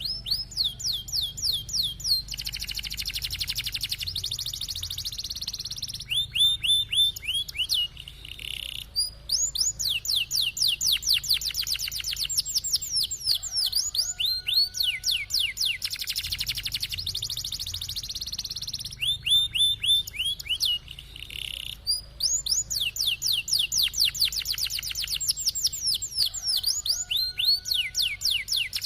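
Canary singing a long rolling song: runs of quick, downward-sweeping chirps alternating with high, buzzy trills, phrase after phrase without a pause.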